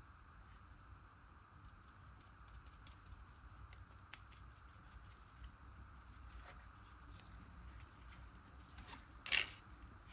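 Faint, irregular light taps and ticks of a paintbrush stippling fabric paint into porous PU foam, with one louder short crackling knock about nine seconds in.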